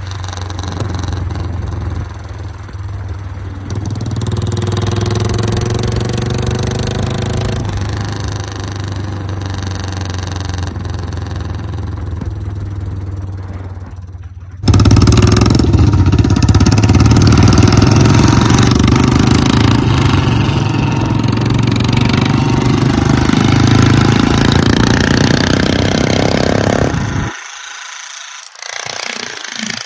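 Royal Enfield Bullet 350's single-cylinder engine running with the silencer removed, exhausting through a short open C-bend pipe. It is first revved while standing, rising for a few seconds and settling back. About halfway through it turns much louder and steady under way on the road, mixed with a second Bullet riding alongside, and cuts off sharply near the end.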